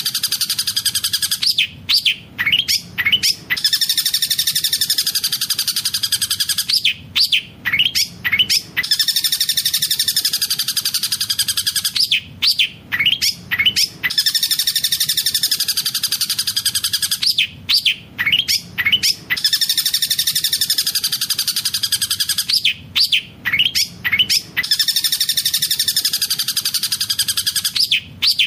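Long-tailed shrike (cendet) singing a fast rolling song filled with mimicked collared kingfisher (tengkek buto) calls. Each phrase is a long, rapid trill followed by a quick run of five or six short rising notes, and the phrase repeats about every five and a half seconds.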